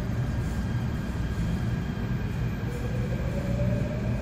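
Seoul Subway Line 3 electric train pulling out of the station: a steady low rumble of wheels and running gear, with the traction motors' whine rising in pitch from about halfway through as the train gathers speed.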